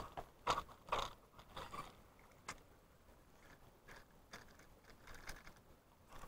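Faint, irregular crunches and scrapes of footsteps on river stones and gravel, several close together in the first two seconds, then sparser.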